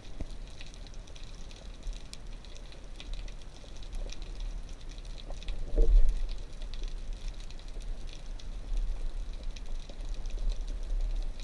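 Underwater ambience heard through a camera housing: low water rumble with a steady crackle of small clicks, and a brief louder gurgle about six seconds in.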